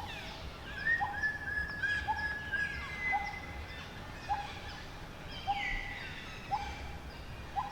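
Forest birds calling: a short note repeated roughly once a second, with a couple of longer falling whistles, over a low rumble of background noise.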